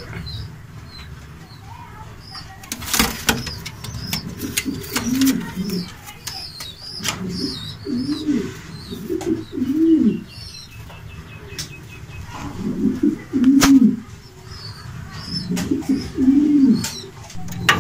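Shatin pigeons cooing, a few low, arching coos repeated in several bouts, with an occasional sharp click.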